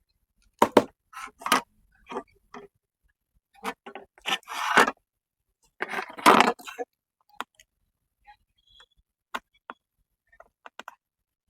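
Irregular clicks, taps and short scrapes of soldering tools working on a printer's logic board while solder is cleared from the pin holes of a removed USB port. The loudest clicks come about a second in and again around six seconds in.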